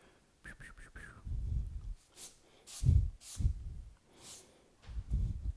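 Eraser rubbing over graphite on drawing paper in a handful of short strokes, with low bumps of the hand and paper against the drawing board.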